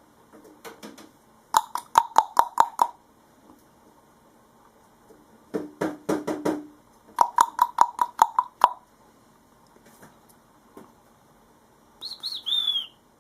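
Cockatiel rapping its beak on a hard surface in three quick bursts of about six or seven knocks each, the strikes ringing slightly, as it does when in a happy mood. Near the end it gives a short, falling chirp.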